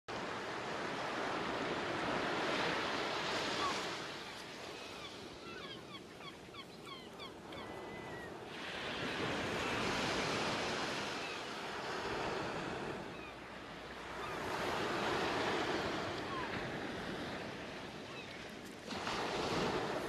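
Ocean surf: waves washing in and ebbing in four slow swells, the last one rising suddenly near the end. A few faint high chirps sound in the lull between waves about five to eight seconds in.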